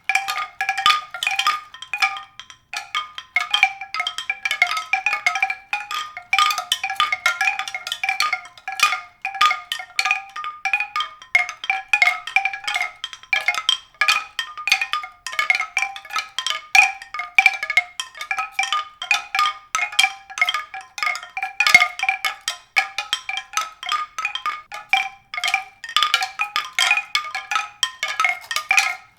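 A dense, continuous run of quick struck pitched notes, like mallet percussion, with no pause throughout.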